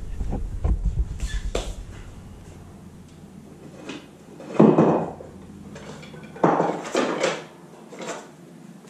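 Handling clatter from objects being moved off-camera: a quick low rattle in the first second, then a louder clatter about halfway through and another, in two or three knocks, a couple of seconds later.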